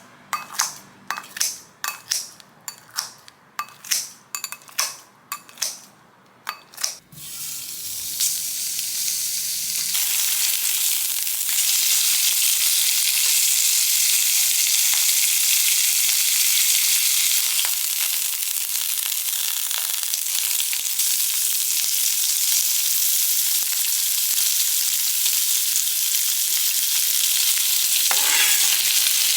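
Food sizzling in a hot frying pan: the hiss builds over a few seconds, then holds steady. Before it there is a run of about a dozen sharp knocks, roughly two a second.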